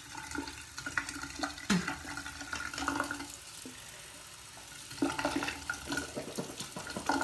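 Water from a bathroom sink tap splashing into the basin, with irregular splashes and mouth-rinsing sounds as water is swished and spat out.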